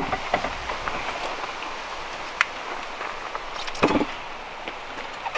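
Scattered light clicks and clinks of hand tools and suspension hardware being handled, with one louder knock about four seconds in, over a steady background hiss.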